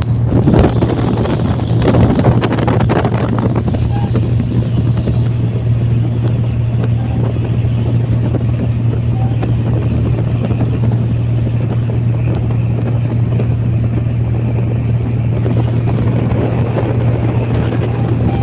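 Fast river taxi boat's HO 7D engine running steadily at speed, a constant low drone under a rush of noise, with wind buffeting the microphone.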